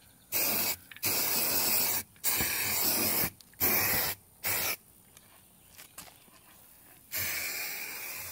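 Aerosol can of turf marking paint spraying in hissing bursts: five short sprays in the first five seconds, then a longer spray beginning about seven seconds in.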